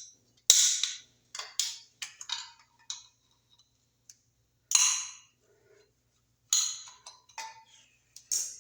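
Hand tool clicking and scraping against a metal electrical box as a small tab on it is worked open: a string of irregular sharp clicks and short scrapes, the loudest about half a second in, near five seconds and again about six and a half seconds in.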